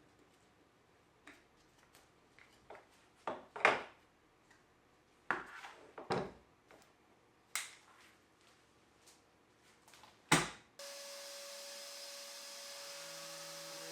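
Irregular knocks and clacks of wood pieces and hand tools being handled on a workbench, the loudest a sharp knock about ten seconds in. A steady hum with a faint tone sets in just after it.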